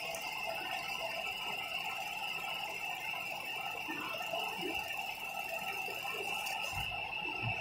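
Fiber laser marking machine running while it engraves a mirror: a steady high-pitched whine over a lower buzz, continuous and unchanging.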